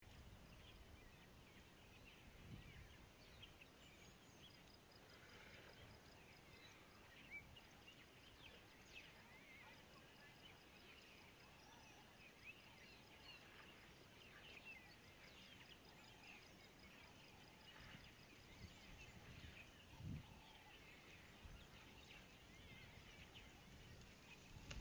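Faint natural ambience at a dry-country waterhole: scattered small bird chirps, with a faint even run of high ticks through much of the middle. Two soft low thumps stand out, a few seconds in and near the end.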